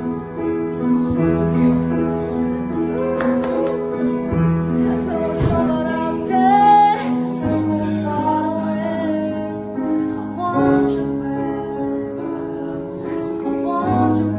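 Music: slow held chords over a steady bass, with a short wavering melody line near the middle.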